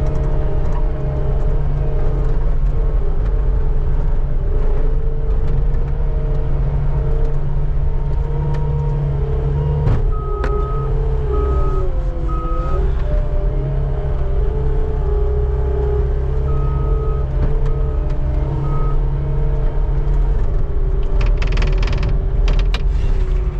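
Skid steer engine running steadily under load, with its backup alarm beeping in two short runs of three beeps as it reverses. A burst of harsher scraping noise comes in near the end.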